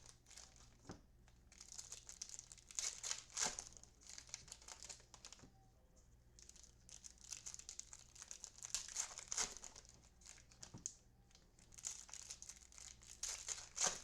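Trading card pack wrappers crinkling and being torn open by hand, in several clusters of rustling with short pauses between.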